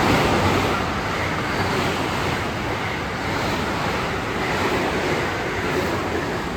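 A train passing close by: a loud, steady rushing rumble of wheels on rail and moving air that eases slowly over the seconds.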